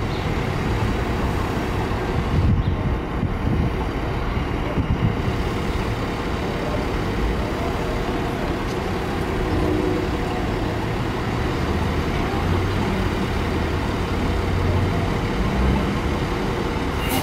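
Heavy truck engine running steadily with road traffic noise, and wind buffeting the microphone in the first few seconds.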